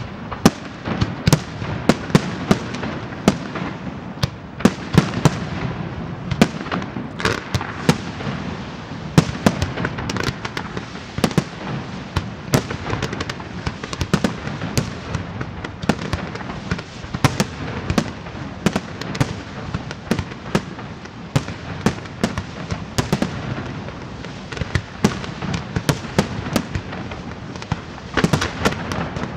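Aerial fireworks display (a Valencian castillo): shells bursting in dense, irregular bangs, several a second throughout, over a steady hiss and crackle of rising comets and fountains.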